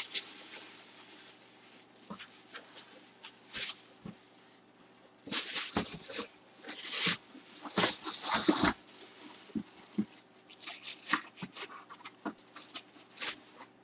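Cardboard box and its packaging being handled: irregular short rustles and scrapes, busiest from about five to nine seconds in and again near the end.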